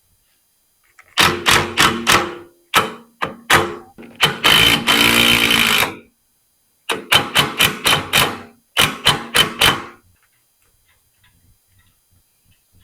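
Power driver running self-tapping screws into a steel frame rail, in clusters of short trigger bursts with one steady run of about a second and a half near the middle.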